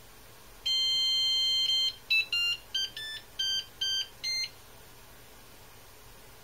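Flashforge Adventurer 5M Pro 3D printer's buzzer playing its power-on tune as the machine boots. One long beep of about a second comes first, then seven short beeps of changing pitch.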